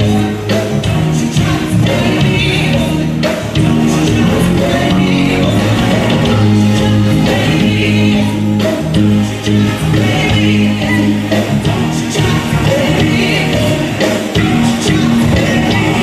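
A woman singing into a handheld microphone over backing music with sustained bass notes.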